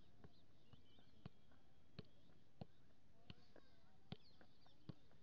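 Faint, regular taps of a football being juggled on the foot, about one touch every 0.7 seconds, with birds chirping in the background.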